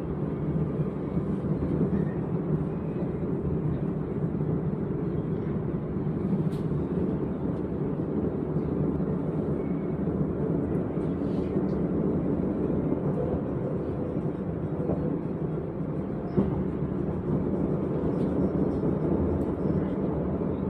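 SNCF Z 50000 (Francilien) electric multiple unit running along the line, heard from aboard: a steady low rumble of wheels on rail and running gear, with faint ticks and one short knock late on.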